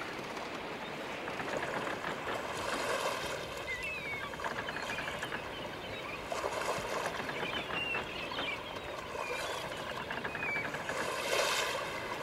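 Steady road and wind noise from a car driving, with short high chirps now and then.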